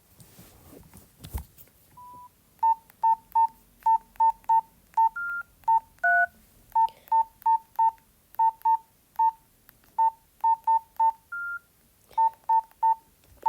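Nokia 113 keypad tones: a quick, irregular series of about two dozen short, identical beeps as the buttons are pressed, with a few slightly longer beeps at other pitches among them. A soft knock sounds a little over a second in.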